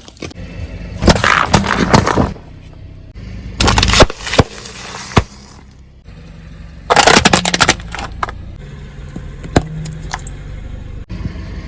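Crunching and cracking as a car's tyre rolls over and crushes objects, in about four bursts with sharp cracks between them, over a faint steady low hum.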